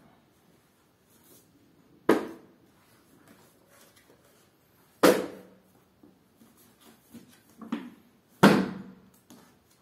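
Paperback study books being set down one at a time onto a spread of other books on the floor: three sharp slaps about three seconds apart, with a few softer knocks and shuffles between.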